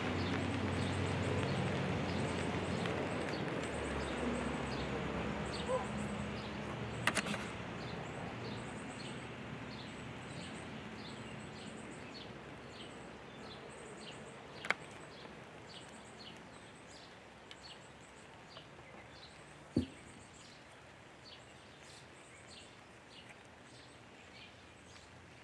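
Outdoor traffic noise fading away as a vehicle passes off, while a small bird gives short high chirps about once a second. A few sharp clicks and one low thump break in.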